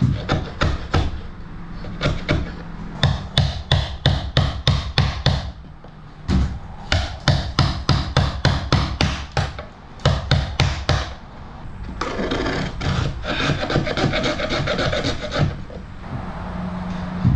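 Hand tool working timber in rhythmic strokes, about four a second, in runs with short pauses. The strokes then give way to a denser, continuous scraping, and a steady low hum comes in near the end.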